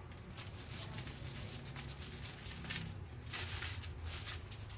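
Faint rustling and light knocks of a plastic-wrapped clothing package being handled and turned over, over a low steady hum.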